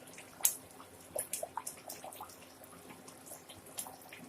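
Thick fish curry simmering in the pot, with bubbles popping in small, irregular plops and clicks.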